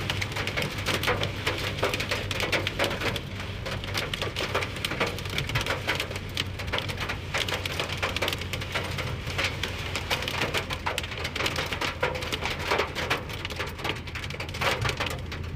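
Rain pattering densely on a hard surface, a fast irregular patter of many small hits, over a steady low hum.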